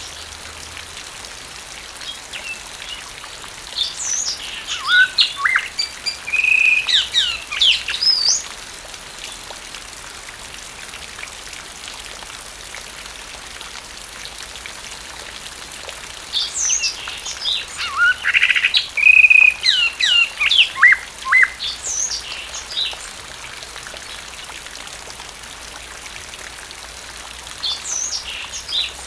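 Blue mockingbird singing in bouts of varied, fast-changing phrases: one about four seconds in, a longer one from about sixteen to twenty-three seconds, and a short one near the end. Steady rain hiss runs beneath.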